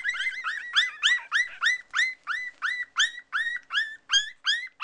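Newborn Yorkshire terrier puppies squealing: a quick run of short, high squeaks that slide upward, about five a second, a few overlapping at first. These are the cries of hungry puppies wanting the mother to nurse them.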